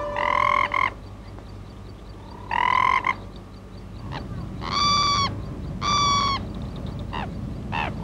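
An animal calling repeatedly: four drawn-out, tonal calls of about half a second each, one to two seconds apart, then two short calls near the end.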